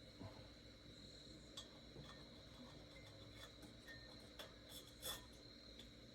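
Near silence: a faint steady background hum with a few soft, scattered clicks.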